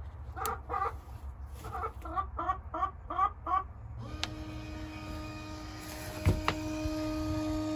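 Hens clucking in a run of short calls. About four seconds in, the Omlet automatic coop door's motor starts with a steady hum as the door is driven closed, and two sharp knocks come a couple of seconds later.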